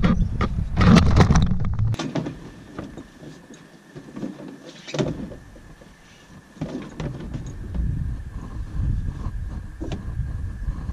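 Wind buffeting and road rumble on a camera mounted on a moving pickup truck, cutting off abruptly about two seconds in. Then quieter outdoor sound: scattered light steps and knocks as a canoe is carried overturned on a man's shoulders, over a faint steady high tone.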